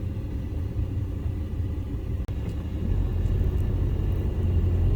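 Steady low rumble of a car on the move, road and engine noise heard from inside the cabin, growing a little louder in the second half.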